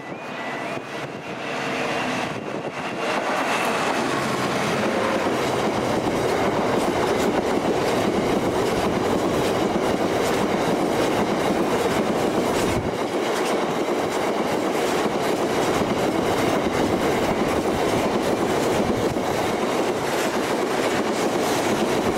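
Level crossing warning alarm warbling at the start, then a GB Railfreight Class 66 diesel locomotive (two-stroke V12) passes at speed. A long rake of empty aggregate hopper wagons follows, with a steady loud noise of wheels on rail that swells about two to three seconds in and holds.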